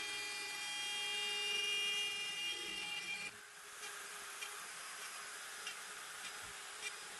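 CNC router spindle whining at a steady pitch as its end mill cuts a slot into a plastic crate. About three seconds in the whine cuts off suddenly and a quieter hiss with faint scattered ticks follows.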